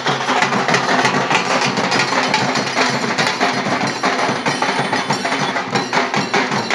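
Procession drum band playing a loud, fast rhythm, a large double-headed drum among the drums, the strokes coming thick and rapid without a break.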